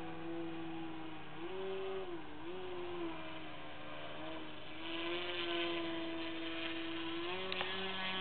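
Radio-controlled aerobatic model airplane's motor and propeller droning overhead, the pitch rising and falling several times with throttle changes through its manoeuvres.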